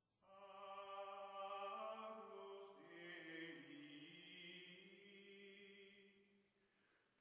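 Faint choral chant music: sustained voices holding long notes that change pitch every second or two, fading out near the end.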